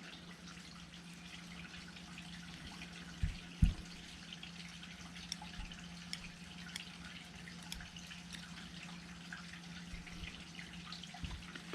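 Faint small clicks and light taps of a tool working small plastic and metal parts of an airsoft gas-blowback rifle's bolt, with two soft knocks a little over three seconds in, over a steady low hum.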